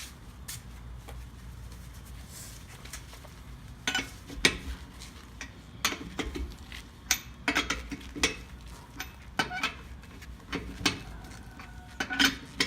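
Irregular metallic clinks and clanks of a lug wrench working on the wheel's lug nuts, a dozen or so sharp knocks at uneven intervals starting about four seconds in.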